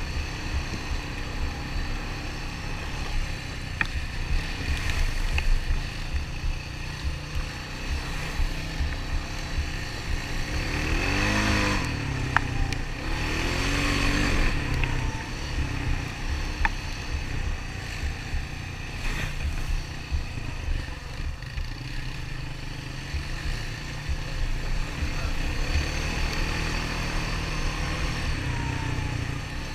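Honda Rancher 400 ATV's single-cylinder four-stroke engine running as it rides a trail. Its pitch rises and falls twice around the middle as it revs.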